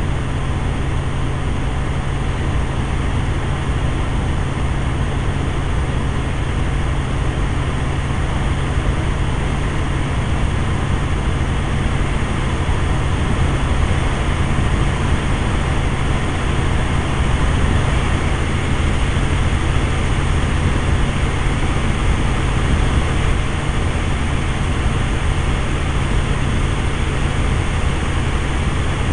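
Helicopter in steady forward flight, heard from inside the cabin: a loud, unchanging engine and rotor drone with wind noise.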